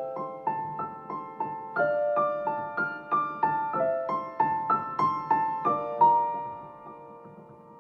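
Background piano music: a gentle melody of single struck notes, about two a second, which thins out near the end to one fading held note.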